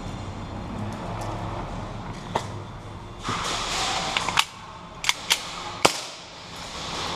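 Scattered single shots of airsoft gunfire: about five sharp snaps, spread out and irregular, mostly in the second half.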